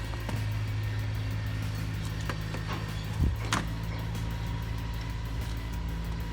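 Steady low drone of an engine or motor running in the background, with a few scattered clicks and knocks and one louder thump about three seconds in.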